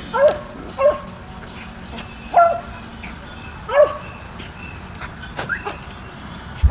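Beagle yipping: four short, high barks, two close together and then two more spaced out.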